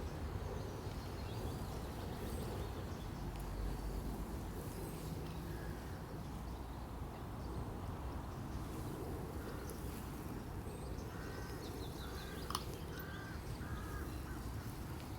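Outdoor nature ambience: a steady low background noise, with a bird calling four times in quick succession about eleven seconds in, and a faint click or two.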